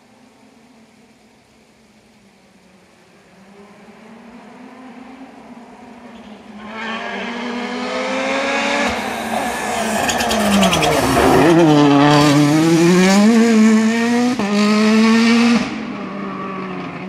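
Hyundai rally car's turbocharged four-cylinder engine approaching flat out, growing louder until it is close. It then drops sharply in pitch under braking, with a rapid crackle from the exhaust, and revs back up through the gears as it passes. Its sound falls away suddenly near the end.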